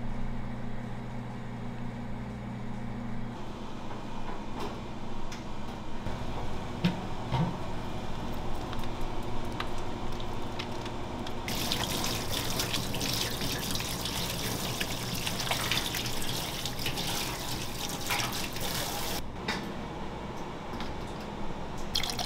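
Kitchen spray tap running onto hands in a stainless steel sink during hand washing. It starts about halfway through, stops a few seconds before the end, and a short rush of water follows near the end.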